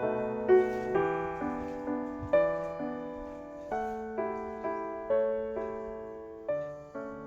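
Background music: a slow, gentle solo piano melody with chords, each note struck and ringing out, gradually fading.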